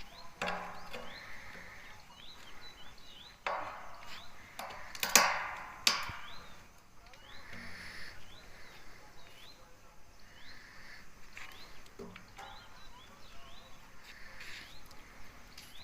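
A few sharp knocks and clatters, the loudest about five seconds in, with another near the end, over repeated short rising bird chirps.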